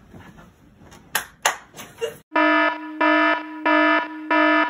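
Faint rustling and two sharp clicks, then about two seconds in an electronic wake-up alarm starts beeping loudly in an even on-off pattern, about three beeps every two seconds.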